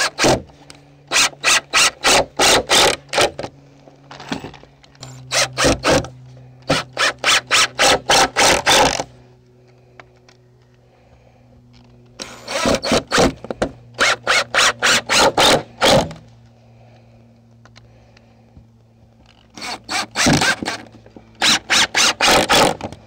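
Ryobi impact driver driving wood screws into wooden bench boards, in four bursts of a few seconds each with rapid hammering strokes. A faint steady low hum carries on between the bursts.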